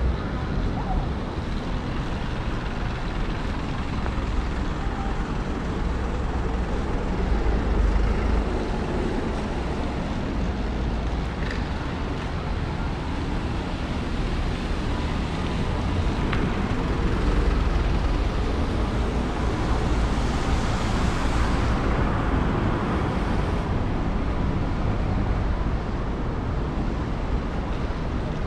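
Rainy city street ambience: steady traffic noise with a low rumble, growing louder and brighter for a few seconds about twenty seconds in.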